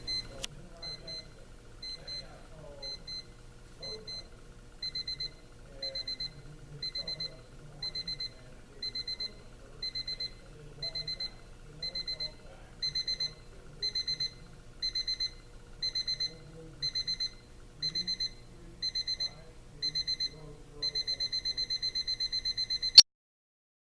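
Beep alarm of a Crosley 33301 battery quartz alarm clock going off. Short high-pitched beeps come in groups about once a second, and the groups grow longer and louder. About 21 seconds in they run into continuous rapid beeping, which cuts off suddenly with a click.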